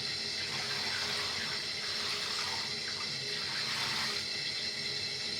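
Tap water running steadily into a bathtub, an even hiss that holds without a break.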